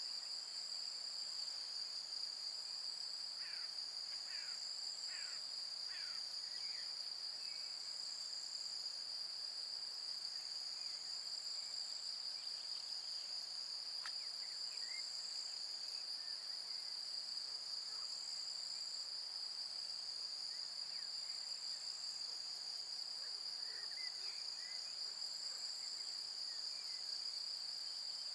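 A steady, high-pitched insect chorus trilling without a break, with a few short faint chirps now and then, mostly about four to six seconds in and again near the end.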